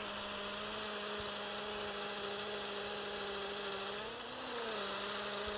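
A small motor running with a steady hum, its pitch rising briefly and falling back about four seconds in.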